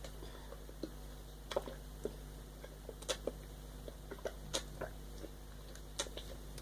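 Small sips of water being swallowed to stop hiccups: faint, irregular gulps and clicks, about ten in all, over a low steady hum.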